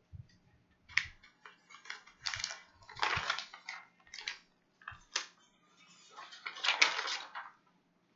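Irregular crinkling noises in about half a dozen short bursts, the loudest near the end.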